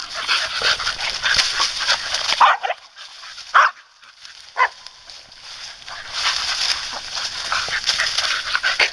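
A bull terrier and a smooth fox terrier scuffling through dry leaf litter: bursts of rustling leaves with short barks, yips and whimpers. There are two sharp yelps around two and a half and three and a half seconds in and a brief whine just after, and the rustling picks up again near the end.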